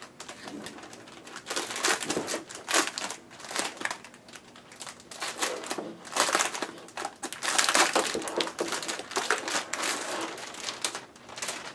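Plastic wrapping crinkling and rustling in uneven crackles while it is handled and pulled off a keyboard.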